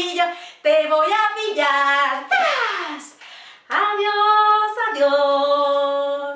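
A woman singing, her voice sliding steeply downward about two and a half seconds in, then ending on long held notes that stop near the end.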